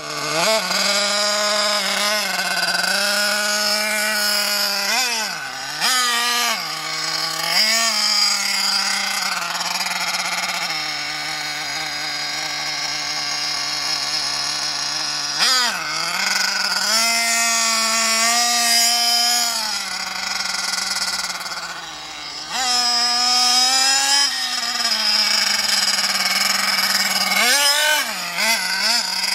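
Carson Specter 1:8 RC car's small glow-fuel two-stroke nitro engine running at high revs while driving, its buzzing pitch rising and falling many times as the throttle is opened and closed.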